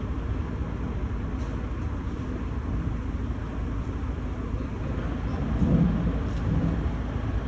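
Steady low rumble of city traffic and construction-site noise, with a brief louder swell about six seconds in.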